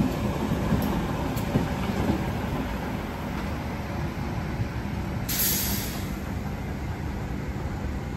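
Red Rattler vintage electric train, power car C3426 at the rear, rumbling along the track as it pulls away, easing slightly as it recedes. A short hiss about five seconds in.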